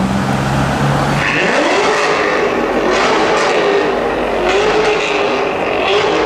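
Drag-prepared Corvette V8 running low, then revving sharply about a second in and held at high revs, dipping briefly twice.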